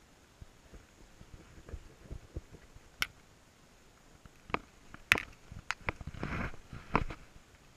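Scattered sharp clicks and knocks, with a short rustle about six seconds in: handling noise while a fly rod and line are worked.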